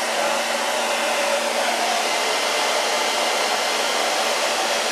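Handheld hot-air dryer blowing steadily, with an even rushing hiss and a slight hum at one pitch, drying freshly applied paint on a wooden board.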